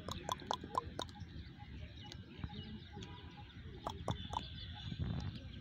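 A goat biting and tearing off green plants while grazing: a quick run of crisp snaps in the first second, and another short run about four seconds in.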